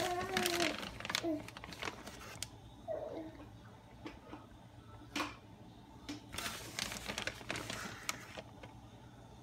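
A baby babbling briefly at the start and again about three seconds in, over intermittent rustling and light taps from shredded mozzarella being sprinkled by hand over sauced chicken breasts in a glass baking dish.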